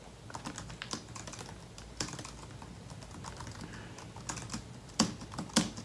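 Typing on a computer keyboard: an irregular run of key clicks, with two louder clicks about five seconds in.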